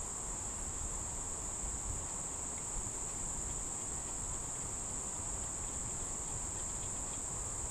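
Steady, unbroken high-pitched drone of insects, with no other clear sound.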